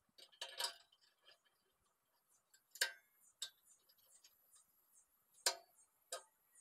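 A few sharp metal clinks and taps from handling the steel bucket and tools, the loudest about three seconds in and another about five and a half seconds in. Faint insects chirp high and steadily underneath, about three chirps a second.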